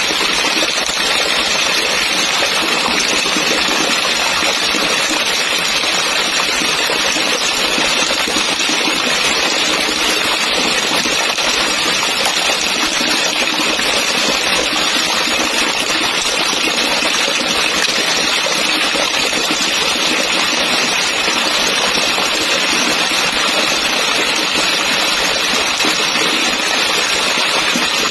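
Heavy rain pouring down and splashing: a steady, dense hiss of falling water that does not let up.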